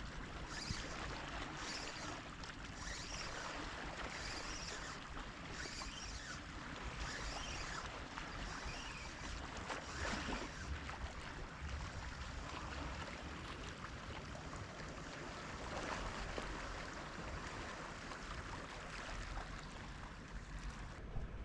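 Sea water washing against a rocky shore: a steady wash of water noise.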